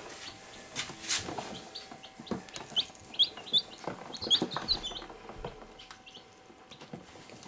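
Day-old chicks peeping: a run of short, high cheeps that rise in pitch, thickest in the middle. Light clicks and rustles come from hands working on a chick.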